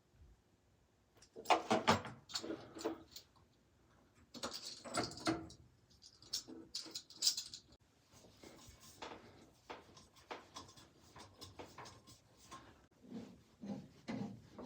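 Irregular clicks, knocks and scraping from hands-on plumbing work on a water heater's relief valve and fittings, busiest in two spells in the first half.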